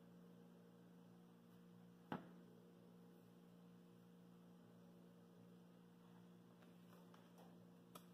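Near silence with a steady low electrical hum. A single brief click about two seconds in.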